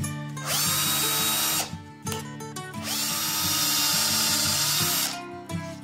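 Cordless drill boring a small blade-entry hole for a scroll saw into an 18 mm wooden board through a paper pattern. It runs in two bursts, about one second and then about two seconds long, and each starts with a short rising whine as the drill spins up. Background music with plucked strings plays underneath.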